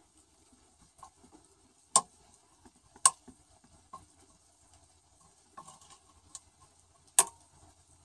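Sharp clicks: three loud ones, the first about two seconds in, the next a second later, and the last near the end, with fainter ticks between them.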